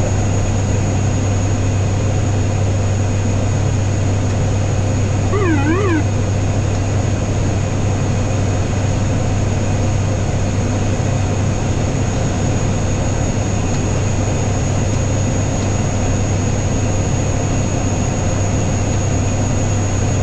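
ATR 72 turboprop cockpit noise: the engines and propellers give a loud, steady low drone, with a thin high whine above it. About five seconds in, a brief warbling tone rises and falls three times.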